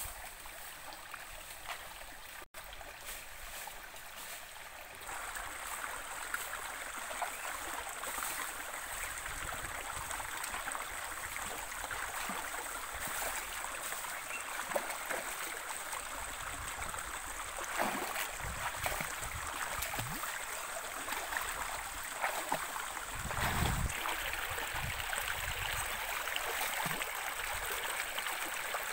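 Shallow stream running over rocks, a steady rush of water that grows louder about five seconds in. A few low thumps and splashes come from wading in the water, the loudest about 23 seconds in.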